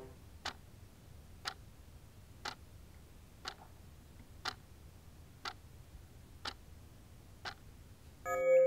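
Clock ticking steadily, one tick a second. Near the end a sustained ringing tone with several pitches comes in and becomes the loudest sound.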